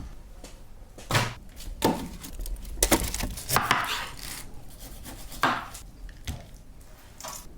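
Knife chopping on a wooden cutting board: about seven separate strokes at uneven intervals, a few of them drawn out a little longer.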